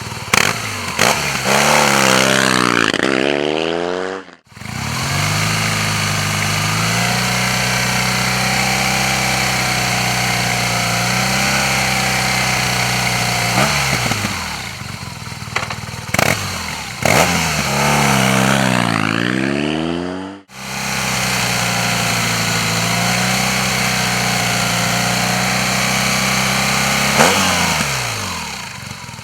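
Air-cooled BMW R 1200 GS boxer twin running through an aftermarket exhaust: revved up and down, then held at a steady speed. This happens twice, each run ending in an abrupt cut.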